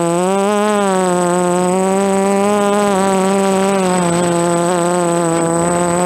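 DJI F330 quadcopter's four brushless motors and propellers buzzing in flight, the pitch rising briefly about half a second in and then wavering and easing down as the throttle changes.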